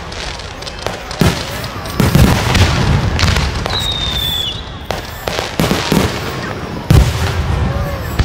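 Aerial fireworks display: shells bursting one after another in sharp, irregularly spaced bangs over a continuous low rumble. The loudest bursts come about two seconds in and again near the end.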